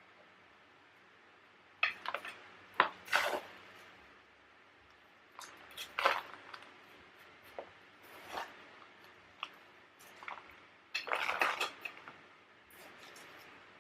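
Hands working soil, gravel and succulent rosettes into a clay pot: irregular short rustles, scrapes and light clicks, with a busier stretch near the end.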